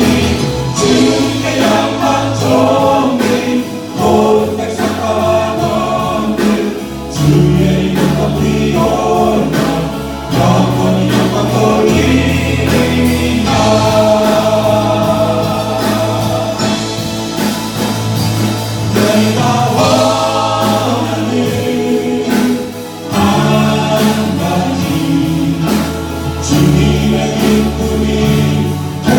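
Church praise-team choir singing a Korean worship song, backed by instruments with sustained bass notes and a steady beat.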